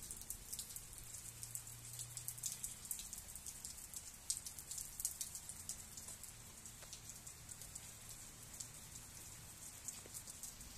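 Steady rain falling, with many sharp drops tapping close by, thickest in the first half and thinning out towards the end.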